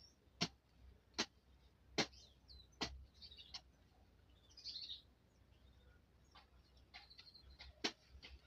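Sharp, regular strikes of a hand tool hitting ground and weeds, about one every 0.8 s, pausing midway and resuming near the end. Birds chirp faintly between the strikes.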